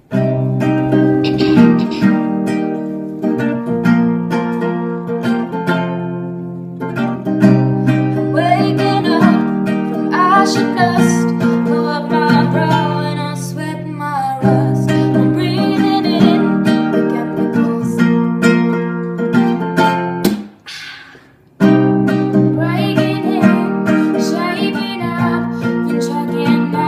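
Acoustic guitar strumming chords, stopping briefly about twenty seconds in and then starting again, with a voice singing over it in places.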